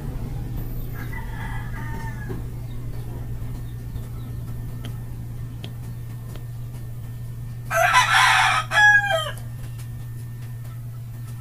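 A rooster crowing: one loud crow about eight seconds in that ends on a falling note, with a fainter call near the start. A steady low hum runs underneath.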